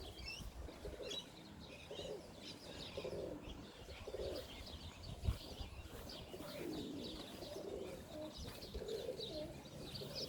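Domestic pigeons cooing, low coos repeating about once a second, with many short high chirps from other birds over them. A single sharp click about five seconds in.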